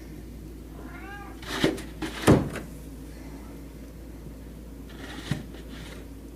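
A short animal cry that rises and falls about a second in, followed by two sharp knocks, the second one the loudest. A fainter cry and a click come near the end.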